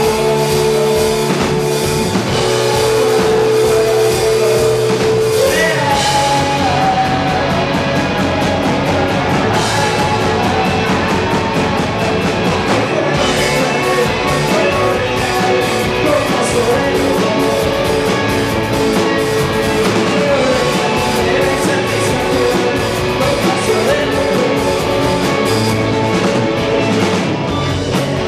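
A rock band playing loud and live, with electric guitars, a drum kit, keyboard and a singer's voice, heard from the audience.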